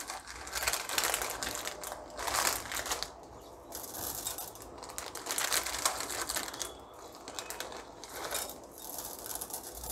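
Chocolate chips being handled and sprinkled by hand into a glass bowl of ice-cream mix, heard as several spells of dry rustling.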